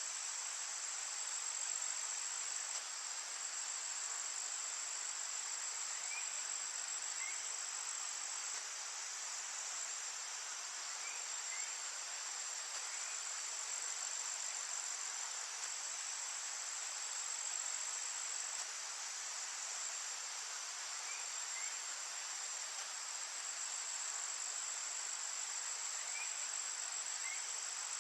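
Garden ambience: a steady, high-pitched insect chorus. Faint short bird chirps come in pairs every few seconds.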